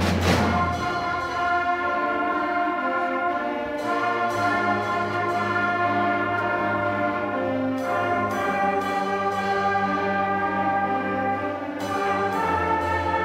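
Student concert band playing held brass and woodwind chords that change every few seconds, after a percussion stroke at the very start. The low brass comes in about four seconds in and again near the end.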